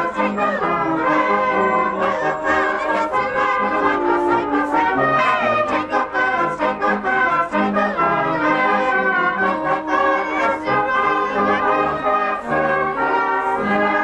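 Brass band playing a Christmas carol, with a crowd of people singing along.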